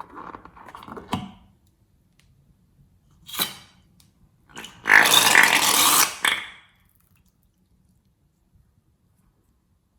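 Slime being handled and squeezed: soft sticky crackles at first, a short squish a little past three seconds in, then a loud wet air-and-slime squelch lasting about a second and a half, about five seconds in.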